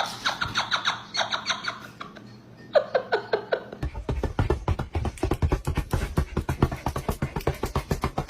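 Two quick runs of short, high-pitched squeaks, then a music track with a fast, even beat that starts about four seconds in.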